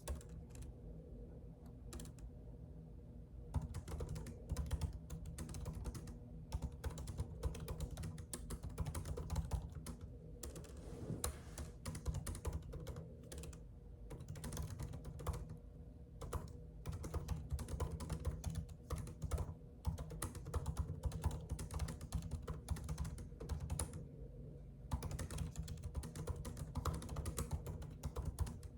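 Computer keyboard typing: fast runs of key clicks, only a few scattered keystrokes for the first three seconds or so, and a short pause about 24 seconds in. A low steady hum lies underneath.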